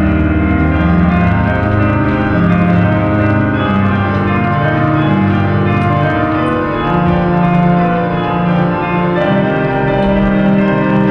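Slow music of sustained, overlapping held notes, organ-like in tone, shifting pitch every second or so.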